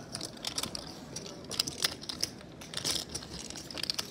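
Poker chips clicking against each other as they are handled, a run of irregular sharp clicks.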